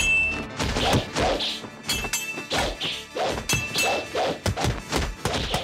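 Rapid run of dubbed kung fu fight sound effects: sharp punch-and-strike whacks with swishes, several hits a second.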